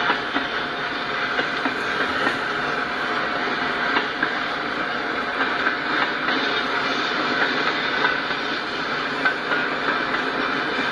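Freight cars (covered hoppers and tank cars) rolling past, a steady rumble of steel wheels on the rails with irregular sharp clicks and clanks.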